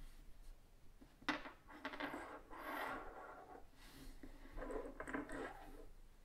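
Black plastic parts trees (sprues) from a Tamiya TT-02 kit being handled on a wooden tabletop. One is set down with a sharp click about a second in, followed by rattling and scraping as the plastic frames are shifted and another is picked up.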